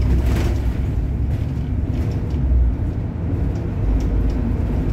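Steady low rumble of a moving bus's engine and tyres, heard from inside the cabin at the front.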